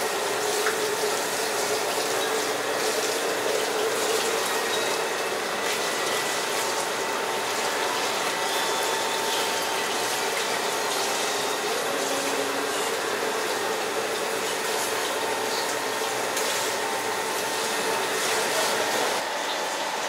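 Water pouring and splashing as a whole dressed duck on a wire hook is dipped into and lifted out of a large steel pot of steaming water, over a steady hiss.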